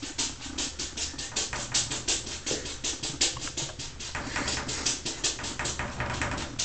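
A kitten's paws tapping and batting rapidly against a glass shower door: quick, irregular taps, several a second, as the cat climbs and paws at the glass.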